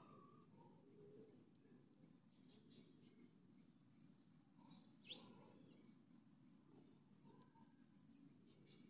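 Faint, even chirping of an insect, probably a cricket, in short high pulses about two a second. About five seconds in, a bird gives one quick whistle that sweeps up in pitch.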